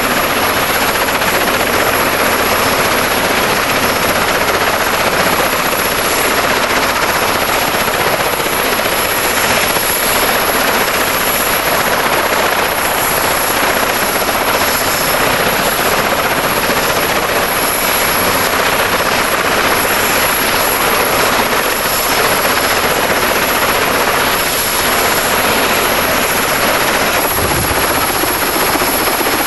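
Westland Wessex helicopter running on the ground: a steady, loud rush of turbine and rotor noise that hardly changes.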